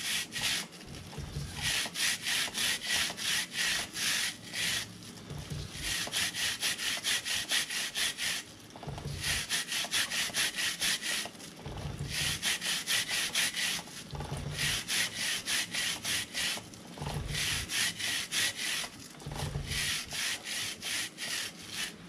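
Stiff bristles of a 360-degree chain brush scrubbing a motorcycle drive chain: rapid back-and-forth scratchy strokes, about four a second, in runs of a few seconds broken by short pauses, with a dull knock as the brush is repositioned at the start of several runs.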